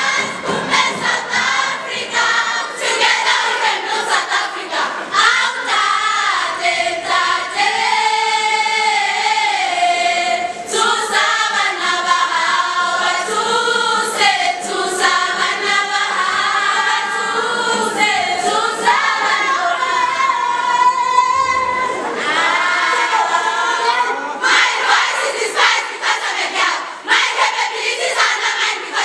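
A school choir singing in harmony, several voice parts gliding together. Sharp percussive beats sound with it in the first few seconds and again over the last five seconds.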